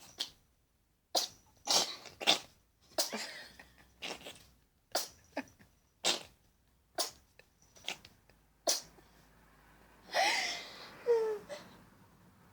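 A cat sneezing over and over: about eleven short, sharp sneezes roughly a second apart. Near the end comes a longer, louder sound whose pitch slides up and then down.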